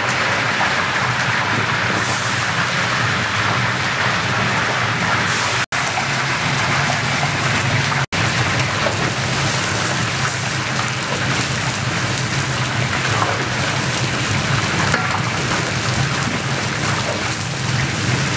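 Meat and onions frying in hot oil in a large kazan: a steady, loud sizzle with a low steady hum beneath it.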